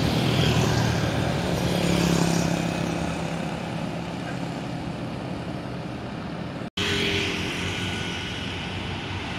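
Highway traffic: motorcycle engines passing close, with larger vehicles running behind them and steady engine hum and tyre noise. The sound drops out for an instant about two-thirds of the way through.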